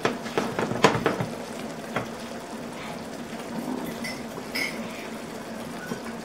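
Pork chops and onions simmering in a soy-sauce broth in a frying pan, with a few sharp clicks of a utensil against the pan in the first second or so and one more about two seconds in.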